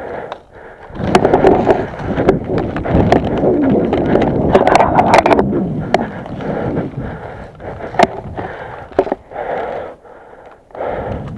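Crunching, scraping footsteps and rustling gear of an airsoft player moving over rough ground, with scattered sharp clicks, starting about a second in and dropping away near the end.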